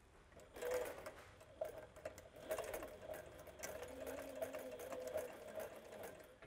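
Sailrite sewing machine stitching through layered HDPE shade cloth to tack down a corner patch. The motor hums steadily under a run of quick needle clicks, starting about half a second in.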